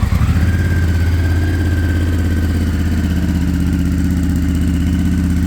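Honda Africa Twin parallel-twin engine, fitted with a REMUS aftermarket exhaust, catching right at the start and settling into a steady idle.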